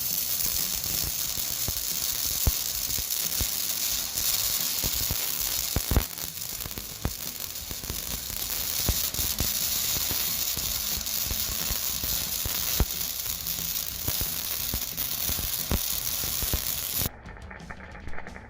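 Electric welding arc on steel, a steady sizzling crackle with scattered sharp pops; it cuts off abruptly near the end.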